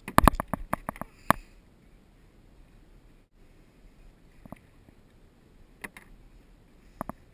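A quick burst of sharp knocks and clatter in the first second and a half, then three single taps spread over the rest, as the freshly landed tuna is handled on the plastic kayak.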